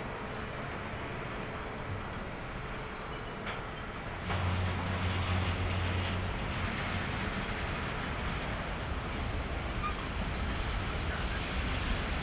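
ET22 electric freight locomotive pulling a train of open wagons away slowly and gathering speed. A low hum from the train steps up and gets louder about four seconds in, over a steady rumble, with faint high-pitched tones above it.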